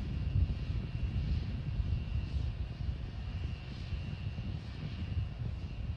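A steady low rumbling noise, with a faint high whistle that fades in and out every second or two.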